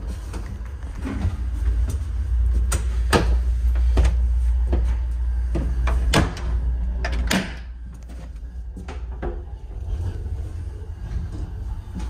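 Clicks and knocks of a sleeping-car shower-room door and its lever latch being handled, over the low rumble of the moving train car. A louder knock comes about seven seconds in, after which the rumble is quieter.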